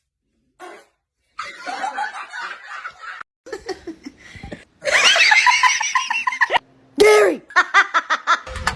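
People laughing in bouts of quick, repeated pulses, loudest and hardest in the middle.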